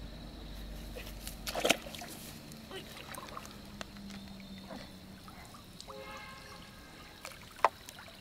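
Water splashing and trickling, with two sharp, louder splashes, one about one and a half seconds in and one near the end.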